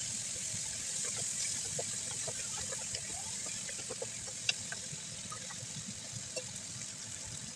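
Sliced mushrooms and bell peppers sizzling in sauce in a non-stick pan as they are stir-fried: a steady hiss with scattered light clicks and scrapes of the spatula against the pan.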